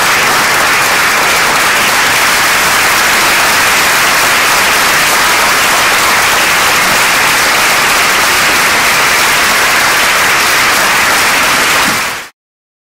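Audience applauding steadily, many hands clapping in a dense, even patter; it cuts off suddenly near the end.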